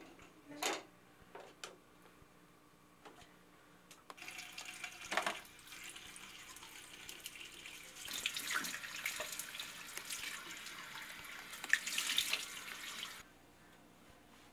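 A couple of sharp knocks. Then a bathroom tap is turned on about four seconds in and water runs into the basin with uneven splashing, as when a face is washed under it. The tap is shut off suddenly about nine seconds later.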